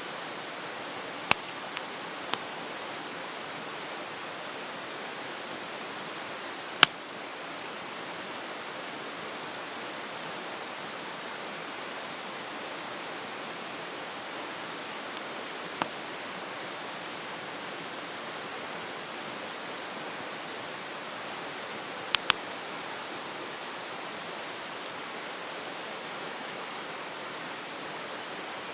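Wood campfire burning: a steady hiss with a few sharp pops and crackles from the burning wood, the loudest about seven seconds in and two quick pops together later on.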